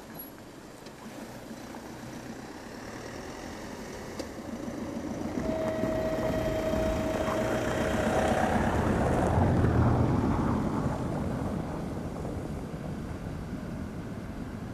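TEM18 diesel shunting locomotive hauling a DR1A diesel multiple unit as it approaches, its engine rumble and running noise growing louder, loudest about two-thirds of the way through, then easing slightly. A steady tone sounds for about three seconds near the middle.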